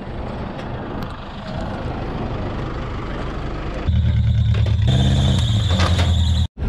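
Small 4WD's engine running and revving as it drives up steel ramps onto a car trailer, growing much louder about four seconds in, with a high steady squeal near the end.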